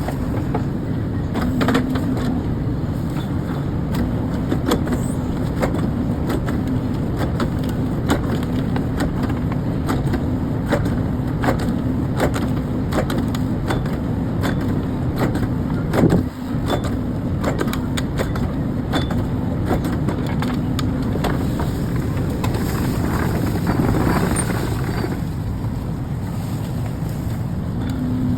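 Heavy machinery's engine running steadily with a low hum, with frequent clicks and knocks from working parts throughout.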